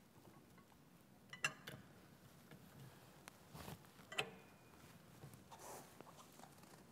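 A few faint metallic clicks, spaced a second or two apart, from a socket wrench being turned on the pump's impeller nut; otherwise near silence.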